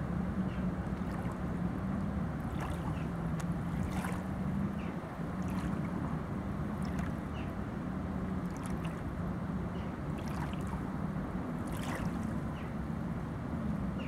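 Small waves lapping on a pebbly shore, a soft splash about every one and a half seconds, over a steady low hum.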